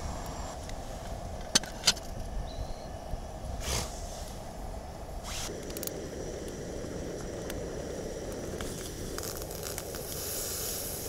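Oysters cooking in their shells over heat: a steady crackling hiss with two sharp clicks about a second and a half in, the hiss growing louder near the end.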